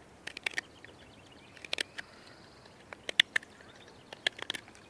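Carving knife slicing shavings off a block of Norway maple: short, sharp cuts in small clusters about once a second.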